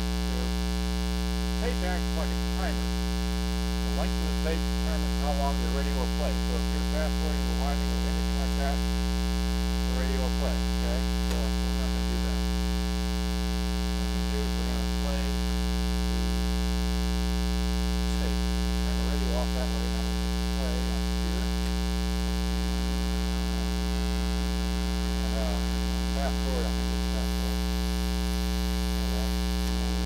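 Loud, steady 60 Hz mains hum with a buzzy stack of overtones. It is induced into the recording by the AC adapter powering the camera, a grounding fault in the recording. Faint wavering sounds come and go beneath the hum.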